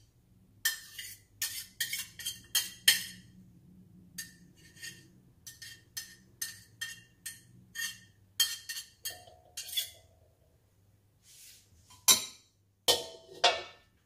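A metal spatula tapping and scraping against a wok and small containers as sambal is spooned out: a series of sharp clinks and taps, a few a second. Near the end, two louder clatters as the spatula is set down in the wok.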